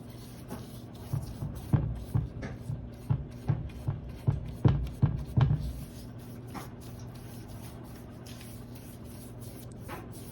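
Paintbrush strokes brushing and tapping against a window frame, an irregular series of short scratchy strokes about twice a second that stop about six seconds in, over a steady low hum.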